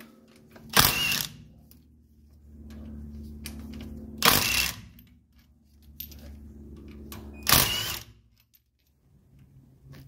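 Milwaukee M18 cordless impact wrench hammering the wheel's lug bolts loose: three short bursts, each about half a second long.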